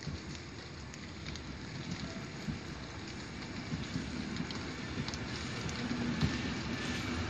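A regional passenger train rolls slowly into the station and past at close range. Its low hum and wheel noise grow steadily louder as it nears, over a steady hiss of rain with scattered small ticks.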